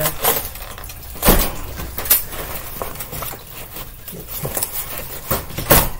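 White wire-grid cage panels rattling and clanking against each other as a wire divider panel is worked down into place, with several sharp knocks, the loudest about a second in and again near the end.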